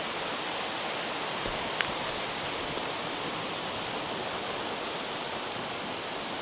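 Steady rushing of water pouring through a dam, an even hiss-like roar with no change in level. A single faint tick sounds about two seconds in.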